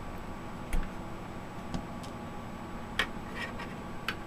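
Handling noise from a computer power supply being taken apart: about five sharp, separate clicks and light knocks of its steel casing and wiring, the loudest about a second in and about three seconds in.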